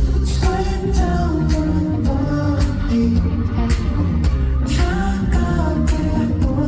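Pop song performed live over a concert sound system: a male singer's voice over a backing track with heavy bass and a steady drum beat.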